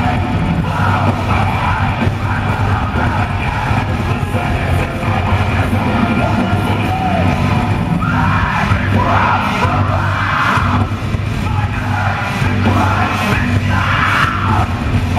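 Heavy metal band playing live: bass-heavy guitars and drums, with yelled vocals coming in strongly about halfway through.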